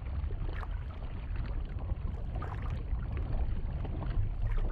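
Underwater stream ambience: a steady low rumble of flowing water with faint small ticks and crackles.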